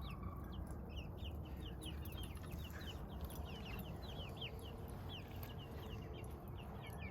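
Chickens in a flock calling: a steady run of many short, high, falling peeps and clucks, over a low steady rumble.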